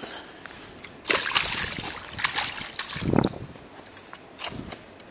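Water sloshing and splashing with sharp clicks, loudest for about two seconds starting about a second in, with a low thump near the middle.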